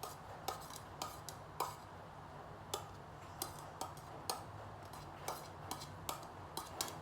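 Metal utensil tapping and clinking against a dish about a dozen times at irregular intervals, as chopped chillies are scraped in.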